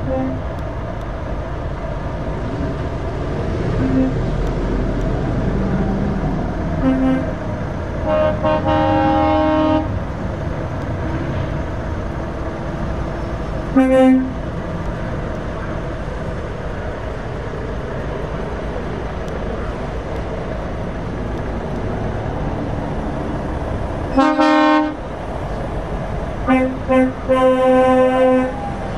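A convoy of heavy lorries passing, with a steady rumble of diesel engines and tyres, broken by truck horn blasts: a long one about a third of the way in, a short one near the middle, another at about four-fifths of the way, and a quick run of toots near the end.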